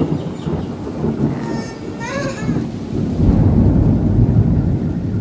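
Heavy rain pouring down with thunder rumbling after a lightning flash; the rumble swells again about three seconds in.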